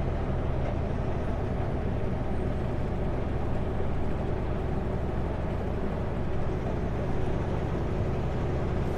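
Kenworth W900L semi truck cruising on the highway: a steady diesel engine drone with tyre and road noise, heard from inside the cab.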